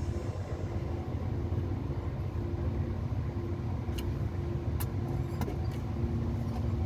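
Steady low drone of an engine running, with a few sharp metallic clicks of a wrench on the bolts about two-thirds of the way through.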